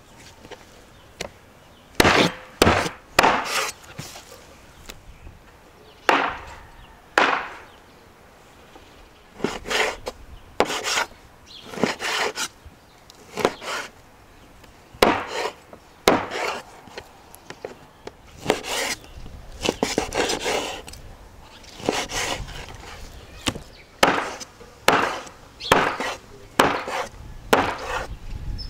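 Heavy cleaver cutting raw lamb and fat on a wooden cutting board: irregular sharp knocks of the blade hitting the board, in short runs with pauses between them.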